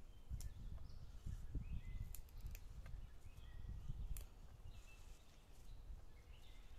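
Hands snapping and pulling apart the stems of fresh wild mountain greens: scattered crisp snaps, with a small cluster a little past two seconds and another single snap about four seconds in, over a low rumble.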